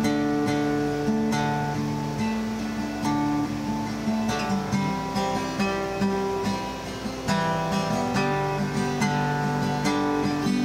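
Acoustic guitar strummed through a chord progression, the chord changing every second or two.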